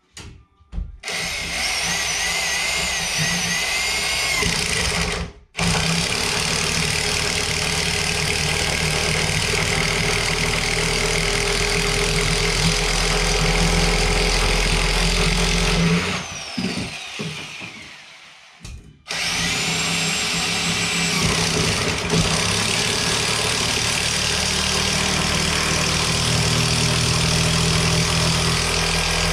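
Electric impact driver running hard, driving 5.5-inch lag bolts into a three-ply LVL beam. It starts about a second in, breaks off briefly, runs long, then winds down with a falling whine. It starts again with a rising whine near the end and keeps driving.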